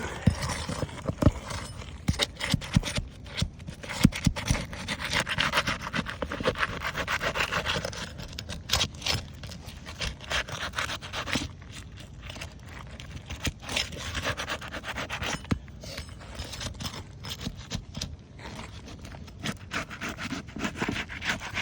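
A tool scraping and working under three-tab asphalt shingles to free them and reach the nails beneath, in long rasping strokes broken by many sharp clicks and knocks.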